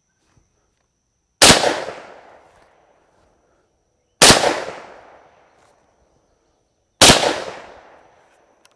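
Three shots from a TriStar Viper G2 semi-automatic .410 shotgun, about three seconds apart, each ringing off over about a second.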